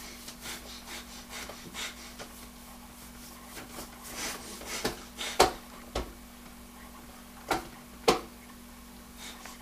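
A baby's hands rubbing and patting the white plastic tray of a Bumbo seat, with a few sharp knocks in the second half.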